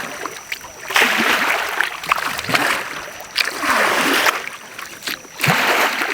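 Kayak paddle strokes in calm water: splashing and dripping surges that come about every second and a half.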